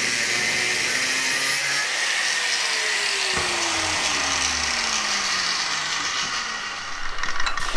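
Angle grinder cutting a steel rod, a loud steady hiss, then the disc coasting down after it is switched off, its whine falling slowly in pitch.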